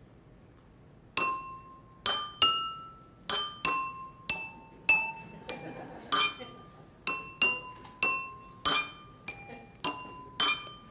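A set of water-tuned drinking glasses struck with metal spoons, playing a tune. About a second in, a string of clear ringing notes begins, one after another at different pitches, each dying away. Each glass's pitch is set by its water level: more water, lower note.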